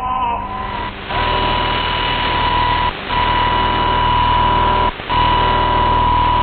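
Unidentified shortwave data signal on 13.52 MHz heard through a receiver. From about a second in, a steady tone near 1 kHz sits in static hiss, cut by two brief dropouts about two seconds apart.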